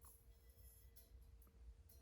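Near silence: a faint low rumble with a faint steady hum and a few soft ticks.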